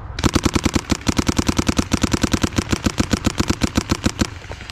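Paintball marker firing a rapid, even string of shots, about ten a second, close by, for roughly four seconds before stopping just before the end.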